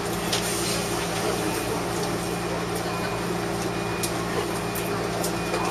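Steady interior hum of a stationary former Seibu Red Arrow electric train, its ventilation and auxiliary equipment running, with a few faint clicks.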